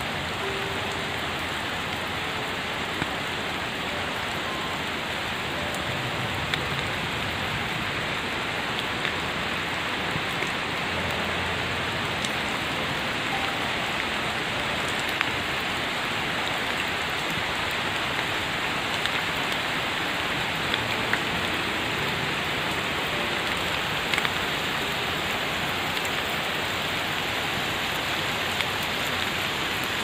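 Steady rain falling on leafy hedges and a wet path: an even hiss with scattered sharper drop ticks.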